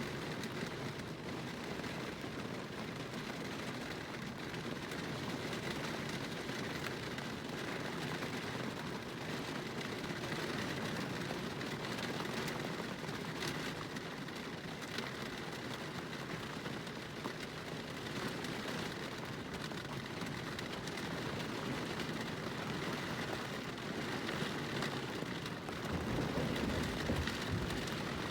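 Steady rain falling during a thunderstorm, with an even hiss throughout. Near the end a low rumble rises beneath the rain.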